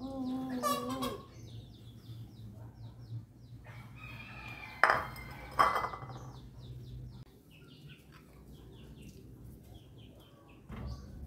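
Birds calling in the background: a longer pitched call near the start, short high chirps repeating throughout, and two sharp knocks about five seconds in, over a low steady hum.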